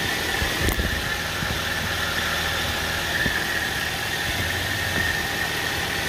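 Toyota Avanza's four-cylinder engine idling steadily, heard up close in the open engine bay.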